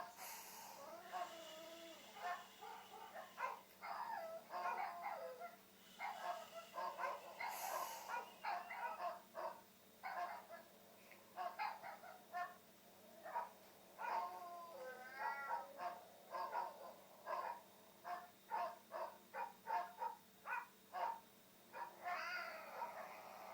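Recorded dogs barking and yipping, played back through a speaker from a compilation of dog and cat noises: a long run of short barks, some in quick series.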